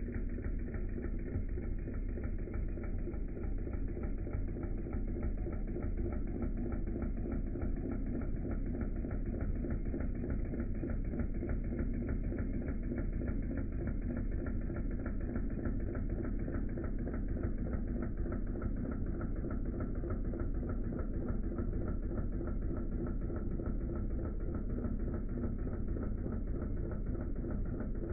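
Wilesco D16 model stationary steam engine running: a steady, rapid mechanical clatter that keeps an even pace throughout.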